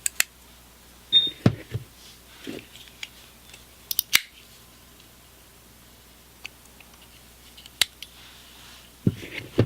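Folding multi-tool being handled: scattered sharp metal clicks and snaps as its implements and knife blade are pulled out and moved, with a cluster a little over a second in, a pair around four seconds and another cluster near the end.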